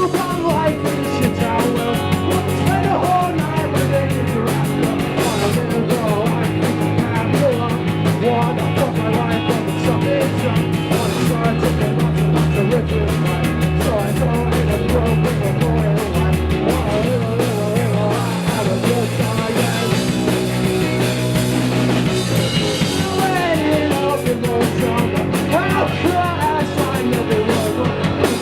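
Rock band playing live: drum kit, electric guitar and bass guitar with singing, the bass changing notes every few seconds.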